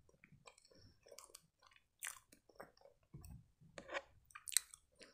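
Faint, scattered soft squishes and small clicks as fingers press blackberries into a split, cream-filled eclair, with light chewing heard close to the microphone.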